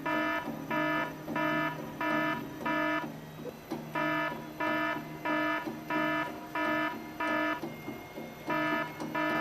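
An electronic beeper sounding a steady run of pitched beeps, each about half a second long, about one and a half a second, breaking off briefly twice. A steady low hum runs beneath the beeps.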